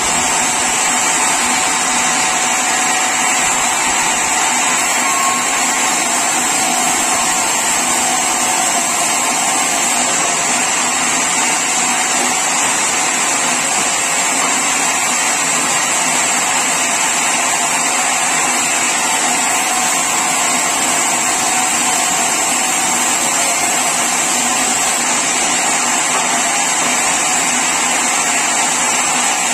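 Sawmill saw running steadily: a loud, continuous mechanical noise with a high-pitched whine that holds without change.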